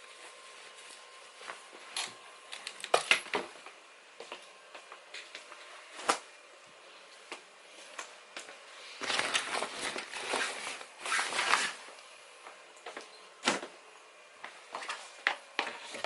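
Small objects being handled in a room: scattered clicks and knocks, with a few seconds of rustling and scraping about nine seconds in.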